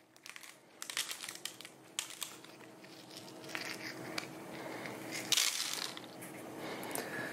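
Dried chili peppers being broken apart and seeded by hand, their brittle skins crackling and crunching in irregular snaps, with a sharper snap a little past the middle.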